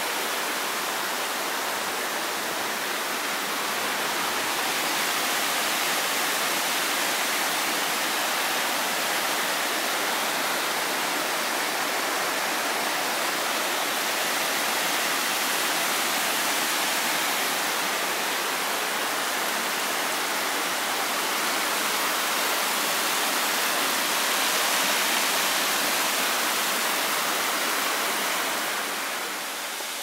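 Steady, loud rush of a small waterfall, stream water cascading down a rock slab. It drops slightly just before the end.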